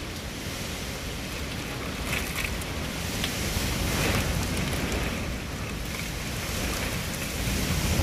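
Strong gusting wind with heavy rain, the wind buffeting the microphone with a low rumble. The gusts swell about halfway through and again near the end.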